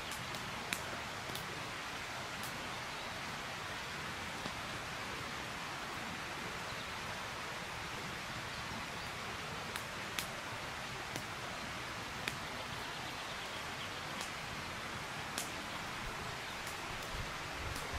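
Steady outdoor rushing hiss, like wind in the trees or distant running water, with a few faint scattered clicks.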